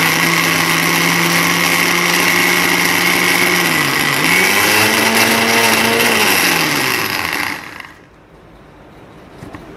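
Electric mixer grinder grinding soaked moong dal with milk into a fine paste: the motor runs with a steady whine, its pitch dips and picks up again about four seconds in, then it is switched off and winds down to a stop about three-quarters of the way through.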